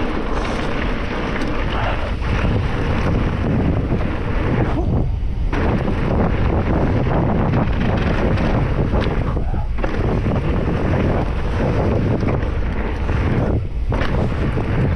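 Loud wind noise on the microphone of a mountain biker's camera while riding fast down a trail. It eases briefly about three times.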